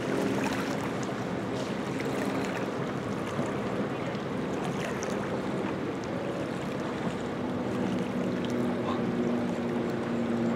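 Yamaha outboard motor idling steadily on a fire department rescue boat.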